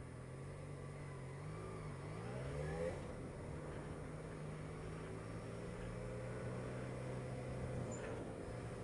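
Motorcycle engine running in slow traffic. Its pitch dips and climbs again between about two and three seconds in, then holds steady.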